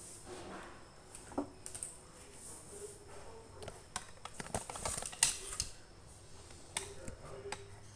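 Scattered light clicks and short rustles of things being handled and moved about, irregular and fairly quiet, busiest just past the middle.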